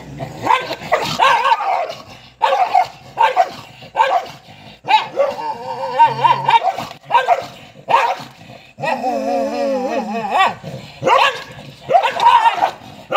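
Two dogs snarling, growling and barking at each other in a squabble over a food bowl: a string of short, high-pitched snarls and yelps, with one longer wavering growl about two-thirds of the way through.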